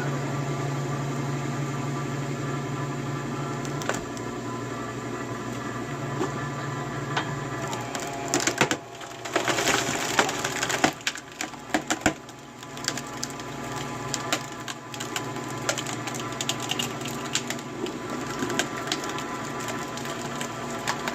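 Firewood being split: wood cracking and splintering in a dense run of sharp cracks about halfway through, with scattered cracks after, over a steady hum.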